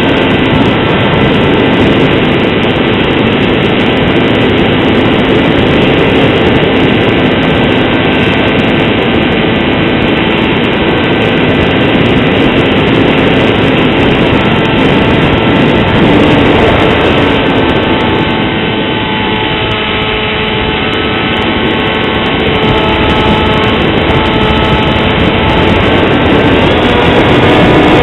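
Electric motor and propeller of a foam RC plane running steadily in flight, a constant whine with wind rush, heard from a camera mounted on the airframe. The throttle eases off briefly about two-thirds of the way through, then comes back up near the end.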